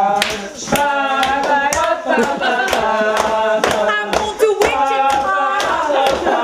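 A group of young men singing together, with hands clapping in a steady beat about twice a second.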